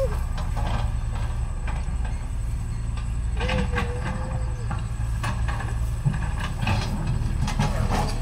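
Steady low rumble with a few light knocks, and a short wavering tone about three and a half seconds in.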